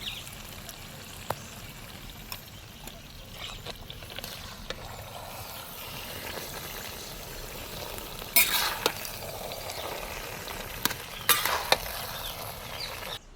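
Biscuit halwa sizzling in a pan while being stirred with a spatula, with scattered clicks and two louder spells of scraping in the second half. The sound stops abruptly just before the end.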